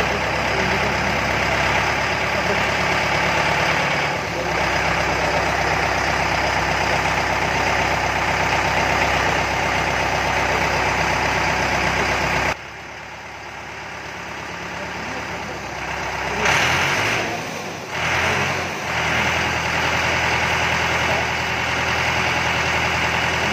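Diesel engine of a Mahindra 4025 tractor running at a steady idle. About halfway through the sound drops away sharply, then comes back loud a few seconds later with some uneven surges before settling into the idle again.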